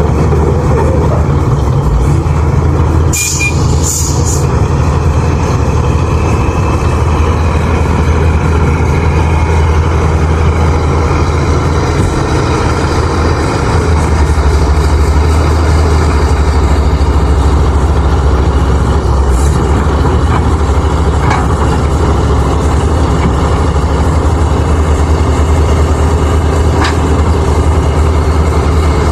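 Heavy diesel engine running steadily under load, with two short high hisses about three and four seconds in.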